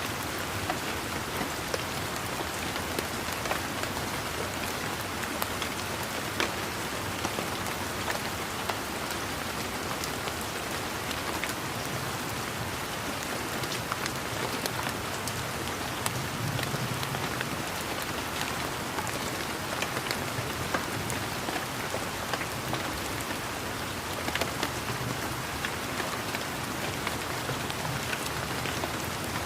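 Steady rain falling, a dense hiss with many individual drops pattering and ticking on leaves and surfaces.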